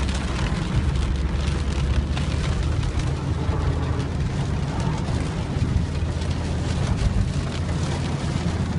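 Heavy rain falling, a steady dense patter over a continuous low rumble.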